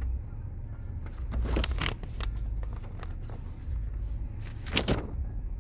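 Vehicle engine idling with a low, steady rumble. Brief handling rustles and clicks come through it about two seconds in and again near the end.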